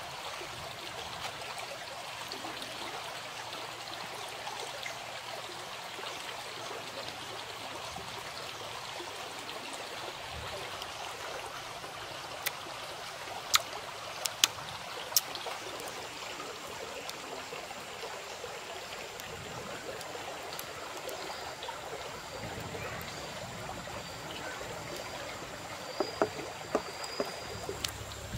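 Steady rushing of running water, with a few sharp clicks about halfway through and again near the end.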